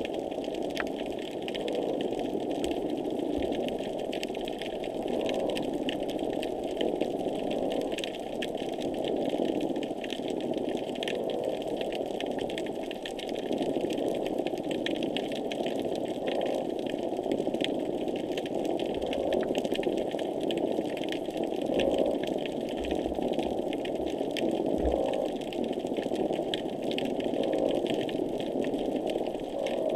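Underwater noise picked up by a hydrophone: a steady, repetitive, machine-like pulsing with a dense crackle of fine clicks, and a few low thuds in the second half.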